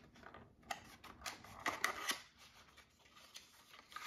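A small black accessory box being handled and opened by hand: scattered light clicks, taps and rustles, busiest between about one and two seconds in.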